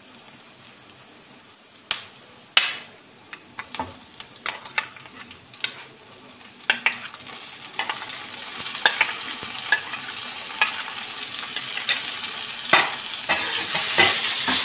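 Sliced onions frying in hot oil in a kadhai, with a spatula scraping and knocking against the pan. Roughly halfway through, chopped tomatoes go in and the sizzling grows louder.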